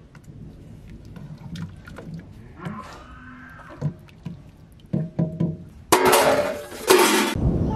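A wooden spoon stirring pilau rice and broth in an aluminium pot, with faint knocks and scrapes, then loud crinkling of a plastic sheet handled close by for about a second and a half near the end.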